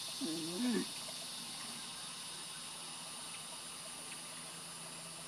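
A steady high-pitched hiss of outdoor background, with a short, low, wavering call in the first second.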